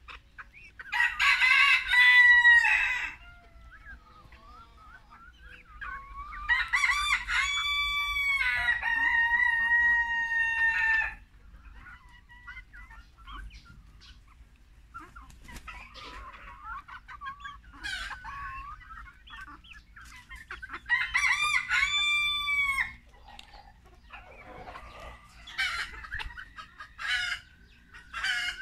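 Silkie rooster crowing three times, long drawn-out crows with a rise and a held note, about a second in, six seconds in and again near twenty-one seconds in. Between the crows, quieter short clucks and calls from the Silkie hens.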